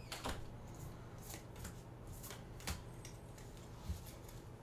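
Pokémon trading cards being flipped through by hand, one card slid behind the next: faint, irregular soft flicks of card stock, a few of them sharper.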